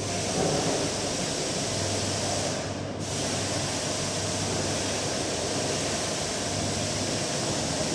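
Electric car polisher running steadily on the paint, a continuous whirring hiss over a low motor hum, its upper hiss dropping out briefly about three seconds in.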